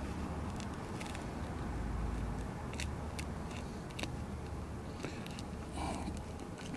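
Pry tool working under the shattered glass of an iPad screen, with scattered sharp clicks and crackles as the broken glass and its adhesive give way, over a low steady hum.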